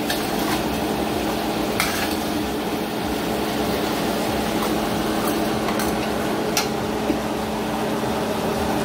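Hassa fish curry sizzling in a nonstick frying pan beside a pot of rice at a rolling boil, with a spoon knocking and scraping against the pan a few times. A steady hum runs underneath.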